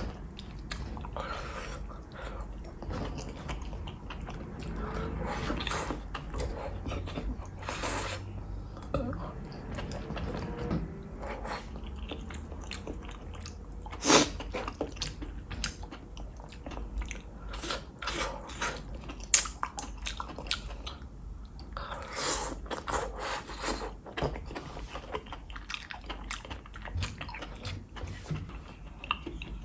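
Close-miked chewing and lip smacking of cooked, saucy enoki and oyster mushrooms: wet mouth sounds with many short clicks and a few louder sharp smacks.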